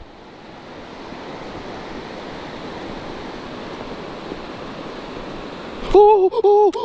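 Steady rush of river water over rocks, growing slowly louder. About six seconds in, a loud, excited shout cuts in.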